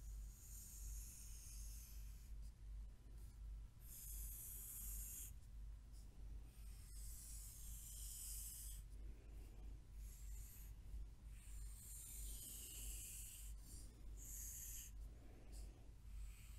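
Pencil drawing long straight lines on paper: a faint scratchy hiss in several separate strokes, each lasting a second or two with short pauses between, over a low steady hum.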